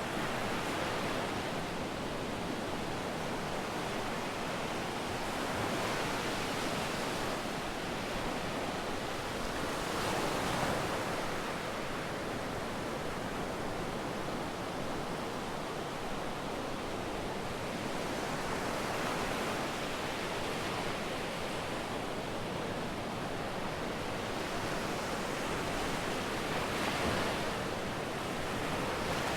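Sea waves breaking on a beach: a steady rush of surf that swells louder every few seconds as each wave comes in.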